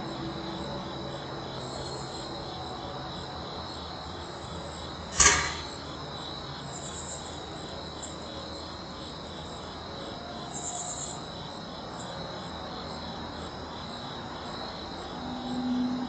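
Crickets chirring steadily in a high, continuous drone, with one sharp knock about five seconds in.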